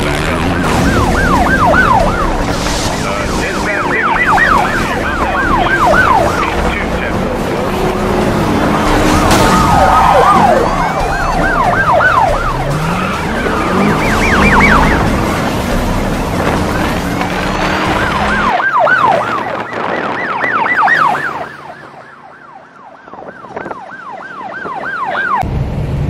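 Emergency vehicle siren on its fast yelp setting, sweeping rapidly up and down in several spells, over a steady rumble of engines and traffic. The rumble drops away about three quarters of the way through and comes back just before the end.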